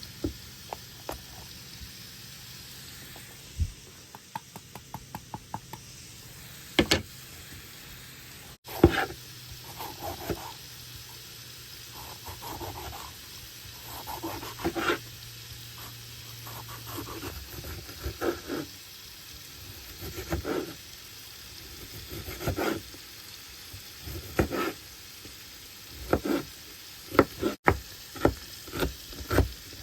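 Chicken sizzling on a grill turned to low, with a cooking utensil repeatedly scraping and clacking against the cooking surface as the meat is turned; the clacks come irregularly and crowd together near the end.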